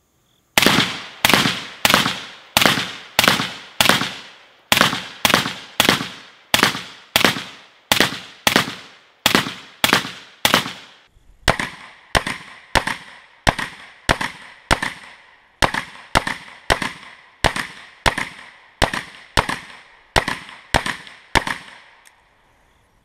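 AR-15-type carbine firing 5.56 mm (XM193) rounds in steady semi-automatic fire, about one shot every 0.6 s, into an AR500 steel plate set inside a cardboard box. About 11 s in the shots turn sharper and shorter, heard from beside the target as the string of fire is repeated.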